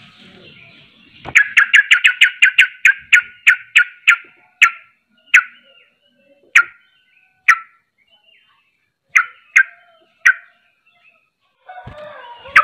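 Yellow-vented bulbul (trucukan) singing a fast rolling run of sharp, bright notes. It starts about a second in at about six notes a second and slows to scattered single notes a second or more apart. Near the end comes a busier jumble of chattering calls.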